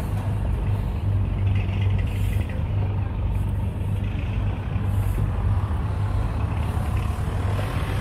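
Steady low mechanical drone of running fairground machinery, with an even hum under a wash of outdoor noise.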